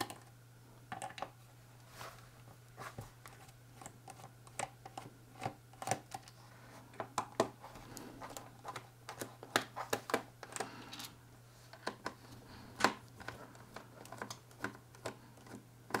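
Irregular small clicks and taps of a Phillips screwdriver turning out the screws of a laptop's bottom cover, with hands handling the laptop.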